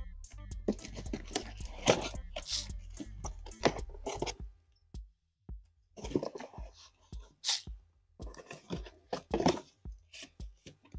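Scissors cutting through packing tape and a cardboard box, with irregular snips, scrapes and rips as the cardboard flaps are cut and pulled open. Low background music plays under the first four seconds or so, then stops.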